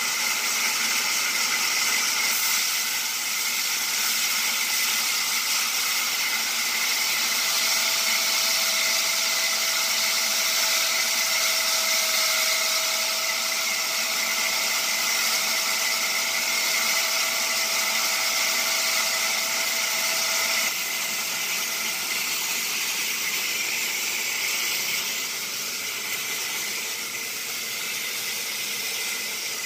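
Horizontal band sawmill running: a steady hiss with a faint whine in the middle stretch, dropping in level about two-thirds of the way through.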